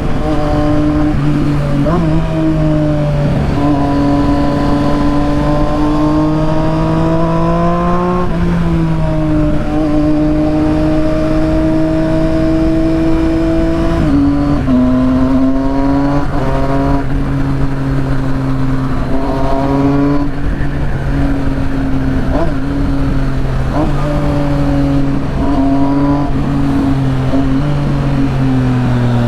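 Triumph Street Triple 675's three-cylinder engine through a full aftermarket exhaust, running at steady high revs under way. The pitch creeps up, then drops sharply about 8 seconds in and again about 14 seconds in, and holds steady with small wavers after that.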